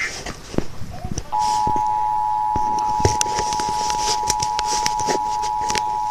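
Emergency Alert System attention signal: a steady two-tone sound (853 and 960 Hz together) that begins about a second in and holds unbroken, announcing an emergency alert, here a severe thunderstorm warning. Scattered clicks and crackle run underneath.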